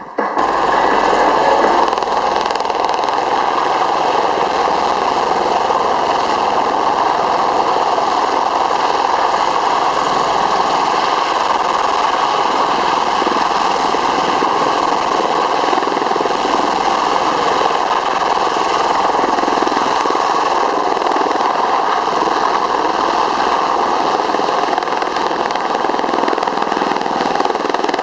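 Aircraft engine noise running steadily and loudly without any change in pitch or level.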